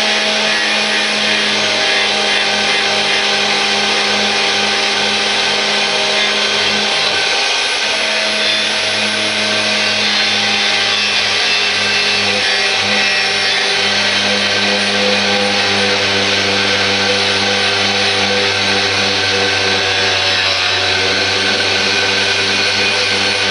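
Electric power tool spinning a wire brush against metal, running steadily under load as it scrubs old paint off the mower's pulley brackets.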